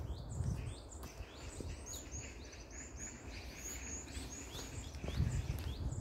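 Small birds giving many short, high chirps, several a second, over footsteps in dry fallen leaves, heavier near the start and again near the end.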